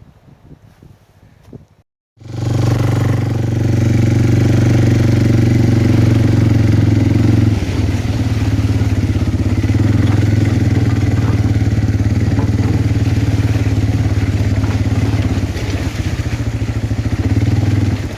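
A vehicle engine running steadily at an even speed, starting abruptly about two seconds in after a moment of silence; its note drops slightly about seven seconds in. Before it, faint scattered rustling.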